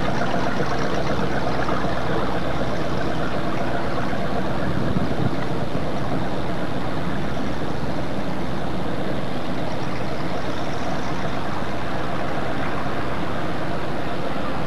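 A nearby engine running steadily: a low hum under an even rushing noise that starts abruptly and holds level throughout.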